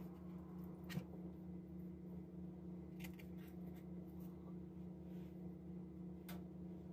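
Faint rustling and soft clicks of shredded lettuce being handled and pressed into fried quesadillas, with a small click about a second in, over a steady low hum.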